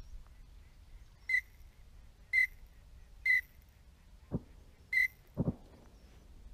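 Four short whistled calls of a drake common teal, about a second apart, with two short lower sounds in the second half.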